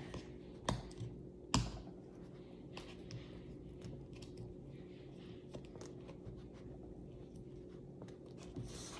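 Fingernails picking and scratching at the sticker seal on a paperboard product box: a run of small faint clicks and ticks, with two sharper clicks in the first two seconds.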